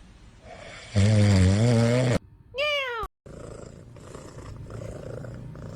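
A sleeping cat snoring. Soft raspy snore breaths are broken about a second in by a loud, low, wavering snore that lasts about a second and cuts off sharply. A short high call that rises and falls follows near the middle, then the soft snoring resumes.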